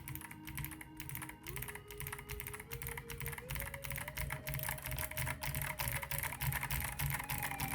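Fast typing on Kailh Box Navy clicky mechanical keyboard switches: a dense run of sharp clicks from their heavy, 85-gram click-bar mechanism. Quiet background music plays under the typing.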